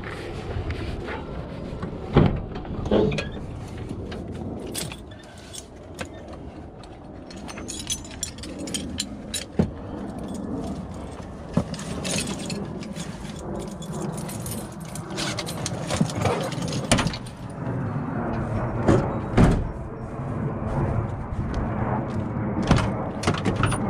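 Tools and gear being handled in a work van's cargo area: repeated metal clinks, rattles and knocks, over a steady low background rumble.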